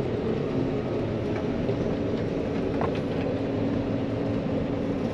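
John Deere 9500 combine running steadily while cutting wheat: an even mechanical drone from the engine, threshing works and header.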